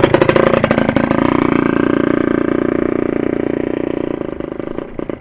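A motorcycle engine running as the bike passes close by, loudest at first and then fading slowly as it moves away.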